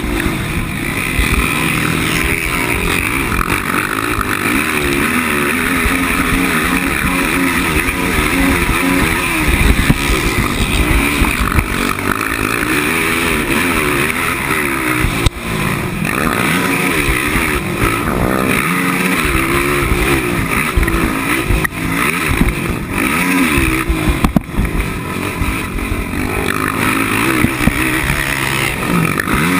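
A 450 cc four-stroke racing quad's engine running hard, heard on board, its pitch rising and falling again and again as the throttle is worked and gears change. Briefly drops off about fifteen seconds in before pulling again.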